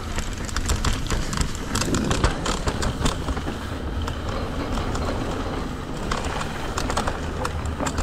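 Mountain bike rolling over a rough dirt and rock trail: a steady rumble of tyres on the ground with many sharp rattling clicks from the bike.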